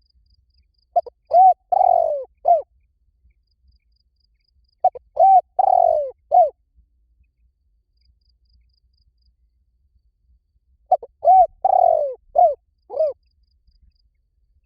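Spotted dove cooing: three phrases of several low, rounded coo notes each, about a second and a half to two seconds long, coming at about 1, 5 and 11 seconds in.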